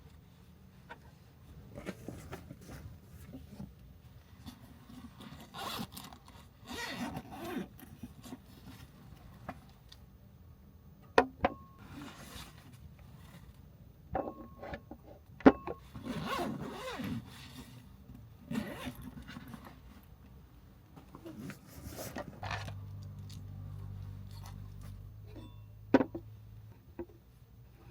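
Close rustling and handling of gear, with zipper-like pulls and scrapes and a few sharp clicks. A steady low hum runs for about four seconds near the end.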